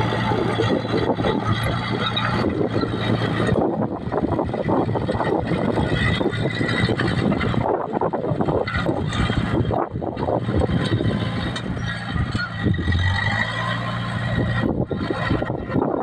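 Small crawler bulldozer's engine running steadily under load, with a dense clatter over the engine note as it pushes loose soil.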